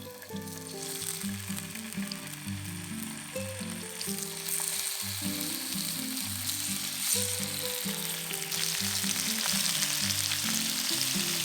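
Chicken wings frying in hot oil in a pan: a steady sizzle that grows louder about four seconds in and again near the end, over soft background music.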